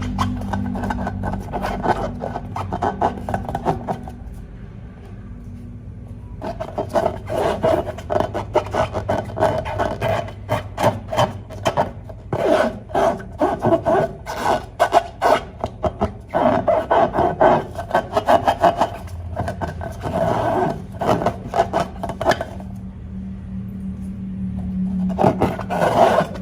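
Slime being squeezed and kneaded by hand, a rapid run of sticky clicks and crackles that eases off twice, once about four seconds in and again near the end. A steady low hum sits under the quieter stretches.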